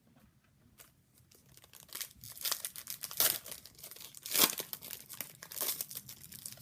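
A hockey card pack's wrapper being crinkled and torn open, a run of crackling rips that starts about two seconds in and peaks twice before easing off.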